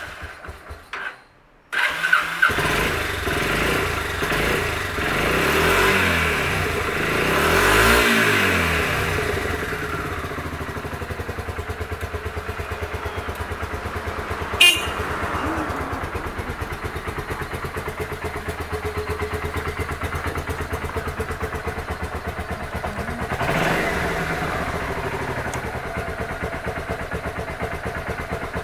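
Kawasaki Vulcan 400 Drifter's V-twin engine being started: a few broken bursts, then it catches about two seconds in and settles into a steady, evenly pulsing idle. A single sharp click comes about halfway through. The seller calls the engine in good condition.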